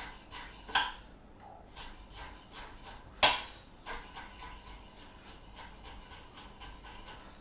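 Large kitchen knife finely dicing fresh ginger on a chopping board: a run of quick, even taps, about five a second, with one louder knock about three seconds in.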